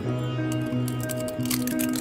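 Background music with held, stepping notes. Near the end come a few light clicks from a glass jar's screw lid being twisted open.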